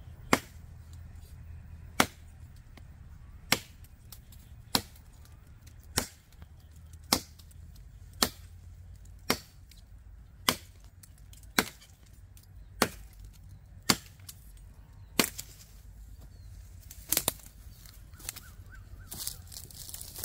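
Heavy 10-inch L6 steel chopping knife striking into a branch, a sharp chop about every second and a quarter, some fifteen strikes in all.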